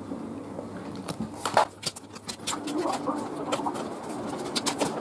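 Trading cards being handled on a wooden table: a series of short clicks, taps and rustles as cards are picked up and moved, the loudest about a second and a half in. A soft, low wavering sound sits underneath in the middle of the stretch.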